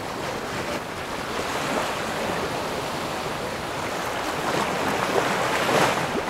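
Choppy sea rushing and splashing along the hull of a sailboat sailing hard upwind, with a louder wave washing by near the end.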